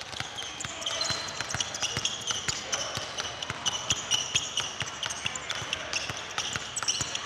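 Basketballs pounded hard and fast on a hardwood gym floor, several quick uneven bounces a second, with short high sneaker squeaks from the footwork.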